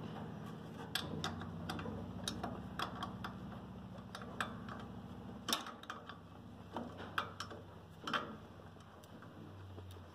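Ratchet wrench clicking in short, irregular strokes, loosening the ½-inch nuts that hold a tractor carburettor on, over a steady low hum.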